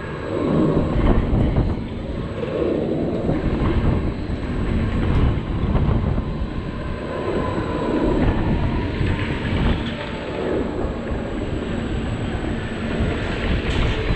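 Wind rushing over the microphone of a camera riding the SBF Reverse Time spinning ride, with a low rumble that keeps rising and falling as the ride turns.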